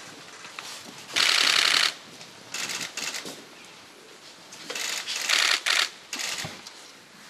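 Camera shutters firing in rapid continuous bursts: a loud burst about a second in, then further bursts around three seconds and five seconds in.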